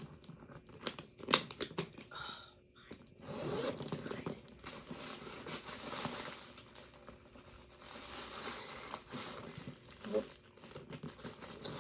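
Packaging crinkling and rustling as a new handbag is handled and unwrapped, with a sharp click a little over a second in.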